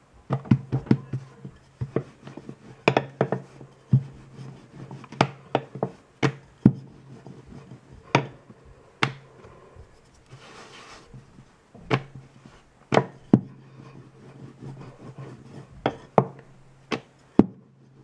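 Rolling pin knocking and rolling on a granite countertop as folded wheat paratha dough is rolled out: irregular sharp knocks, at times several a second, with a brief rubbing of hands on the floured dough about ten seconds in.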